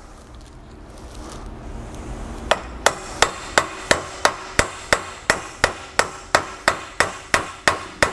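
A small hammer lightly tapping a new Moog universal joint bearing cap into the steel driveshaft yoke: quick, even taps about three a second, starting about two and a half seconds in.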